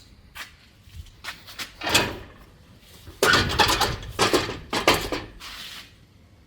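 Workshop handling noises: a few scattered knocks and clatters, then, about three seconds in, two seconds of louder scraping and rattling.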